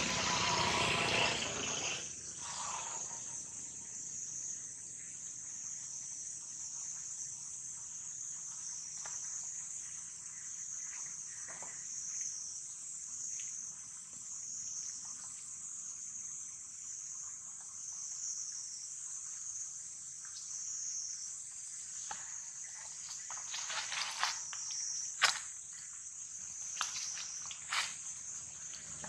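Steady, high-pitched chorus of insects such as crickets or cicadas. A few sharp clicks and rustles come near the end.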